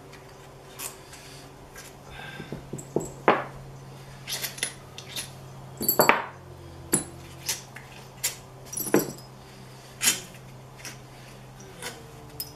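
Scattered metallic clinks and clicks of hand tools and small bolts being handled while crankcase bolts are taken out of a Yamaha YZ125 two-stroke engine, about a dozen irregular strikes, some with a brief high ring. A faint steady low hum runs underneath.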